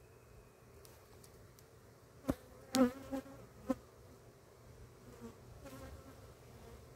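Italian honey bees buzzing steadily around an opened hive. A few sharp knocks from the wooden hive being handled come a little before halfway, the loudest with a short ringing creak.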